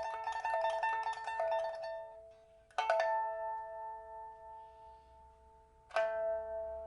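Pipa with a rosewood (suanzhi) body and white ox-horn fittings, a 1994 Man Ruixing instrument with a new soundboard and frets, steel first string and copper-wound lower strings. A fast run of plucked notes is followed by two single struck chords about three seconds apart. Each chord is left to ring and fade, closing the piece.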